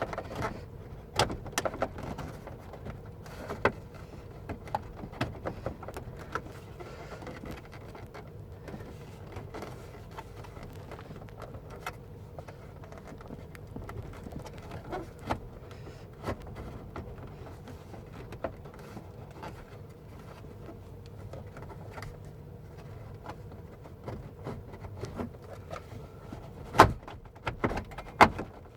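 Plastic interior trim of a Ford F-150 being handled and worked back into its clips by hand: scattered clicks, taps and knocks at irregular intervals, with the loudest knock and a short cluster of clicks near the end.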